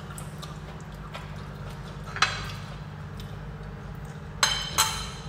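Cutlery clinking against ceramic dishes during a meal: a light tap about two seconds in and two sharper, ringing clinks near the end, over a steady low hum.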